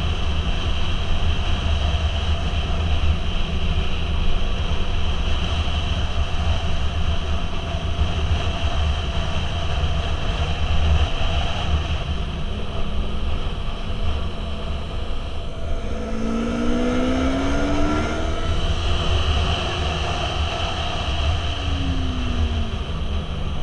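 Motorcycle riding along a road, heard from the rider's camera: a steady engine drone under strong wind rush on the microphone. About two-thirds through, the engine's pitch rises and then falls away as the rider works the throttle into a curve.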